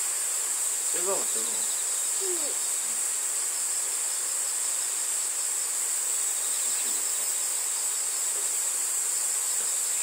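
A steady, high-pitched chorus of insects, shrilling without a break and with a faint pulsing underneath.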